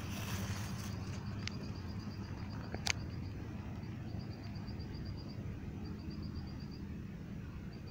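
An insect chirping high and fast, about ten pulses a second, in runs broken by short gaps, over a steady low rumble. A brief rustle of hands working cord around a stick comes at the start, and a single sharp click about three seconds in.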